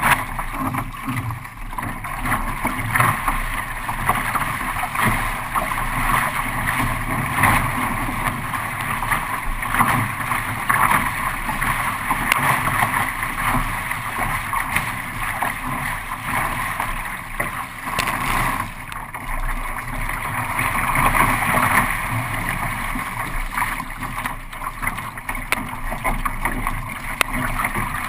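Continuous rush and splash of water around a kayak running with the waves, rising and falling in loudness, with some wind on the microphone.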